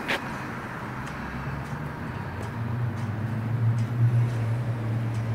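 Steady low engine hum of a nearby motor vehicle, growing louder from about a second in. A sharp click comes at the very start.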